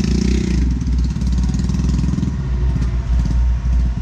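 Heavy diesel engine of a working excavator running loudly with a low, throbbing beat, its pitch briefly rising and falling near the start.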